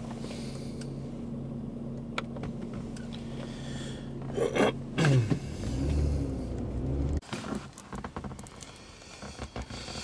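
The 3.0-litre DOHC V6 of a 2004 Mercury Sable running steadily, not misfiring at this point, though its crankshaft position sensor signal is still poor. A low rumble swells about five seconds in, then the sound cuts off abruptly about seven seconds in, leaving faint scattered clicks.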